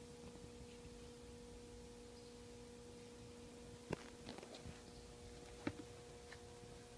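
Near silence: a faint steady hum, with a few light clicks, the loudest about four seconds in and another just before six seconds.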